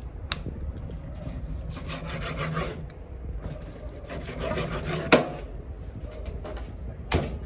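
Large kitchen knife scraping and sawing through rabbit meat on a wooden chopping block, with a few sharp knocks, the loudest about five seconds in.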